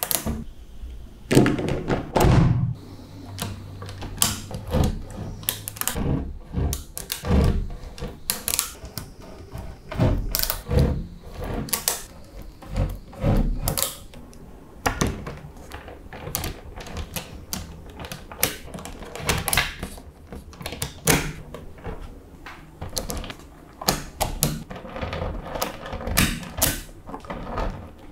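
Small magnetic balls clicking and snapping against each other in irregular runs of sharp clicks and short rattles as they are joined together.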